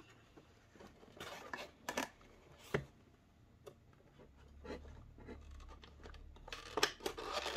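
Cardboard model-train box with a plastic window being handled: scattered light scrapes and taps, with busier rustling near the end as it is opened.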